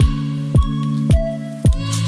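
Background music with a steady beat: a kick drum about twice a second over sustained low synth chords.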